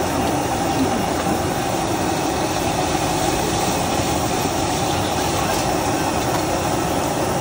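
Steady, loud roar of a stir-fry kitchen, like a high-pressure gas wok burner running, with no clear breaks.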